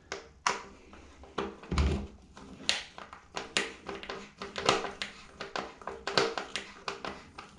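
Irregular clicks and knocks from a plastic exhaust fan housing being handled while a screwdriver works its mounting-clip screws, with a dull bump about two seconds in.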